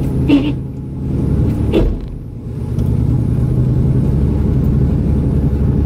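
1984 Mazda RX-7's rotary engine running with the car under way, a steady low drone that drops briefly twice, about a second in and again around two seconds. The engine is overheating badly and leaking coolant.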